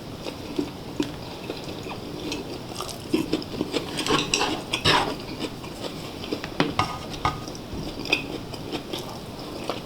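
Eating utensils clinking and scraping against bowls and the pot as food is stirred and scooped, a run of short clicks that is busiest in the middle.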